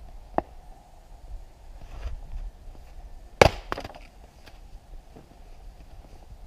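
Axe chopping firewood on a chopping block: a light wooden knock about half a second in, then a loud sharp crack of the axe striking the log about three and a half seconds in, followed closely by a smaller knock.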